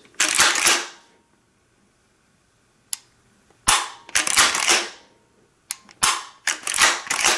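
Browning BPS 12-gauge pump-action shotgun being dry-fired: a sharp click as the trigger breaks, about three seconds in and again near six seconds. Between them come longer metallic clatters of about a second each, from the action being worked to recock it.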